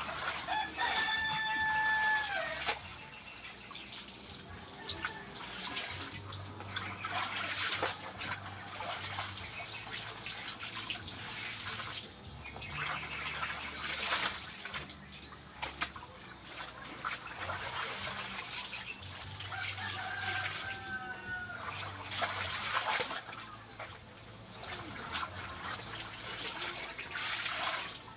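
Clothes being washed by hand in a basin of soapy water, with irregular splashing and sloshing as garments are lifted, wrung and plunged. A rooster crows twice, once near the start and once about twenty seconds in, the second crow falling in pitch.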